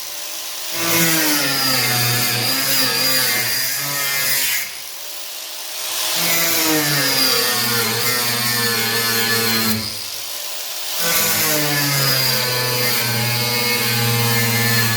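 Angle grinder with a cut-off disc cutting through the steel of a car's rear wheel arch, its pitch sagging and recovering as the disc bites. It pauses briefly about five seconds in and again about ten seconds in.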